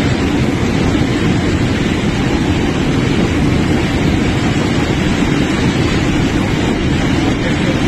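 Floodwater rushing in a steady, loud torrent.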